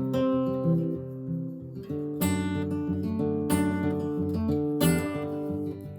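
Acoustic guitar playing an instrumental break between verses: picked notes at first, then three strong strummed chords about a second and a half apart.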